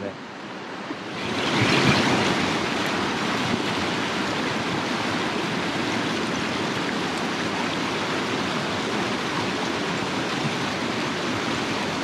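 Mountain stream rapids rushing over rocks, a steady roar of white water that swells about a second in, then holds level.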